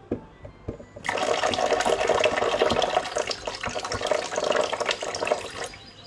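Kitchen tap running, water splashing into the sink, starting suddenly about a second in and dropping away sharply near the end to a much quieter trickle.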